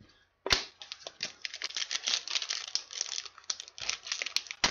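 A trading card pack's foil wrapper crinkling and tearing as it is opened by hand: a sharp click about half a second in, then a dense run of crackles.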